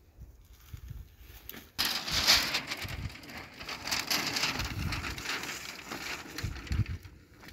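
A white groundsheet being shaken out and spread on the ground: a loud crinkling, crackling rustle that starts suddenly about two seconds in and dies down near the end, after a few soft handling thumps.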